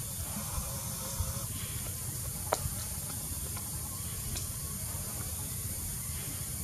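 Steady hissing outdoor background noise over a low rumble, broken by a few sharp clicks, the loudest about two and a half seconds in.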